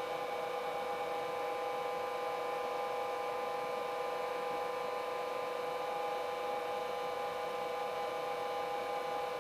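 Yuneec ST16 ground-station controller giving off a steady electronic whine made of several pitches at once, the fault noise the controller should not be making.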